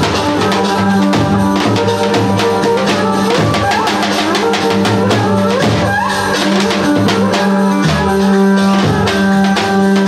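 Upbeat music with a steady drum beat and tambourine, with melody lines that glide up in pitch now and then.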